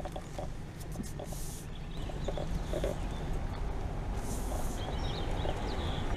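Car driving slowly on a paved road: a steady low rumble of tyres and engine, with a few light clicks and two brief hisses.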